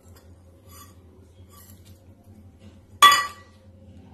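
A small stainless-steel bowl clinks once, sharply, about three seconds in, with a brief metallic ring that fades quickly, as it knocks against a bowl while ingredients are tipped out. A few faint, lighter clinks come before it.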